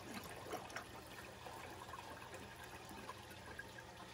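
Faint trickling and gurgling of water draining into an aquarium overflow box's drain pipe, with a few small splashes. The primary drain valve is being closed, so the water is rising over the drain.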